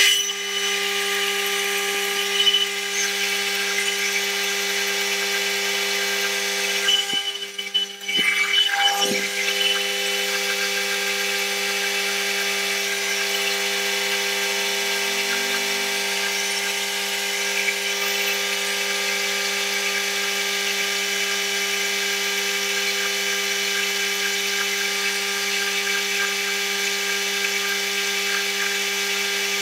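Metal lathe running steadily with a constant hum of several steady tones while a facing cut is taken across the silver-soldered flange face of a brass axle pump body. The sound briefly dips and wavers about eight seconds in, then settles back to the same steady hum.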